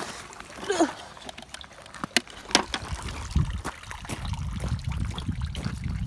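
Pond water trickling and splashing as the garden fountain's pipe fittings are handled in the water, with a few sharp knocks. A low rumble sets in about three seconds in.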